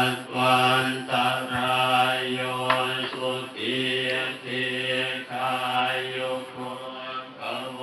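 Theravada Buddhist monks chanting in Pali in unison, a steady droning recitation on a low pitch, broken into short phrases with brief pauses about every second.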